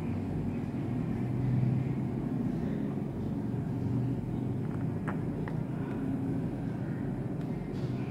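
A steady low mechanical hum, with two light clicks a little past halfway.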